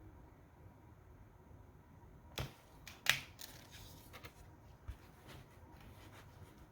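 Handling noise from a children's button sound book: two sharp clicks about two and a half and three seconds in, then a few faint ticks, over a low background hiss.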